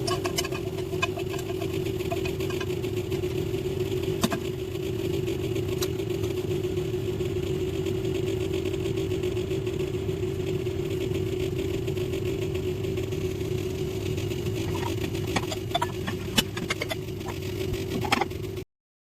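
A steady motor hum with a few light clicks scattered through it, cutting off abruptly near the end.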